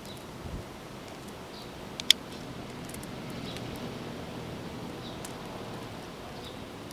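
Steady outdoor background with a few faint, short high chirps scattered through it, and one sharp click about two seconds in.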